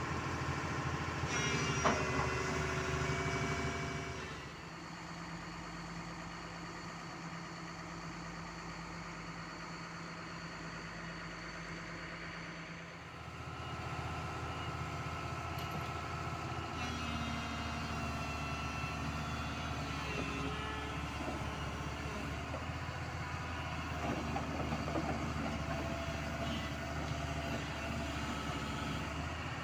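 Diesel engine of a Doosan DX225LCA crawler excavator running steadily as the machine moves and works its boom, with whining tones over the engine drone in the first few seconds. It goes quieter after about four seconds and louder again from about thirteen seconds in.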